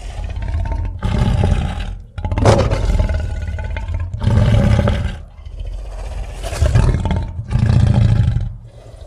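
Snow Godzilla's kaiju roar sound effects: several deep roars in a row, separated by brief breaks, the loudest starting about two and a half seconds in.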